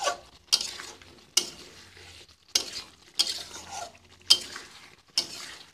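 A spatula scraping and knocking against a metal karai, about six strokes, as chunks of potato, cauliflower and fried egg are turned in a thick masala. A short sizzle follows each stroke: the masala is being fried down on low heat.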